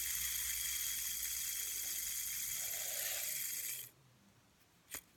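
Fidget spinner spinning fast, its bearing giving a steady high whir with a few fixed tones in it. The whir cuts off suddenly about four seconds in, and a single faint click follows near the end.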